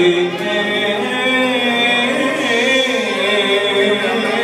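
Male vocalist singing long, wavering held notes through a microphone and PA, backed by a live Middle Eastern band of violin, qanun and darbuka.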